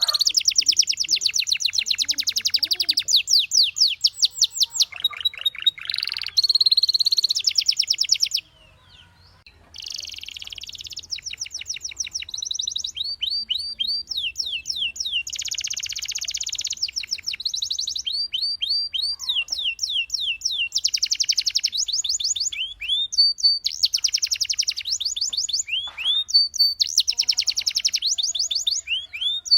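Domestic canary singing in rapid rolls: runs of fast repeated notes lasting a few seconds each, mixed with quick downward-sweeping whistles, with a brief break about eight seconds in.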